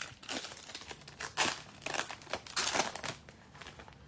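A foil trading-card pack being torn open by hand, the wrapper crinkling in irregular rustles that die down near the end.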